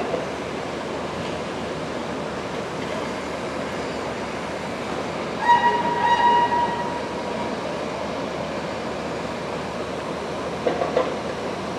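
An engineering locomotive slowly hauling a train into a depot on curved track, heard as a steady noise. About halfway through there is a high-pitched tone lasting a little over a second, and there are a couple of short knocks near the end.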